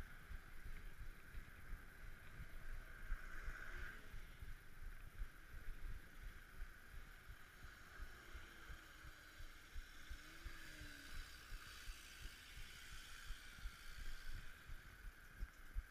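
Low rumble of wind buffeting and road vibration from a bicycle riding among city traffic, with frequent uneven jolts.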